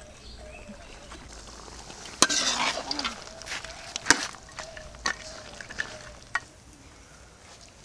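A utensil stirring goat head meat and ground spices frying in an aluminium pot, with sizzling and a few sharp knocks and scrapes against the pot, the loudest about two and four seconds in. This is the kasha stage of a Bengali curry, with the meat being fried together with the spices.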